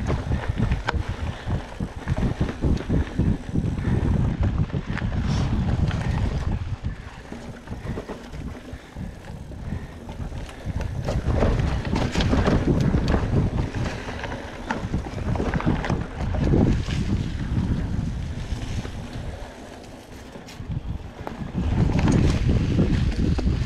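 Wind buffeting the microphone of a mountain biker's POV camera while riding, mixed with the rumble of tyres on the dirt trail and the bike's frequent clicks and rattles. The buffeting eases off twice, about a third of the way in and again near the end, before picking up.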